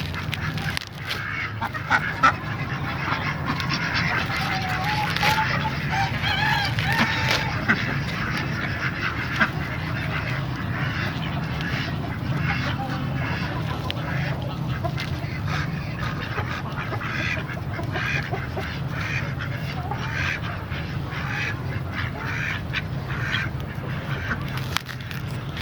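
A flock of domestic fowl calling, with scattered short calls throughout and clearer pitched calls a few seconds in, over a steady low hum.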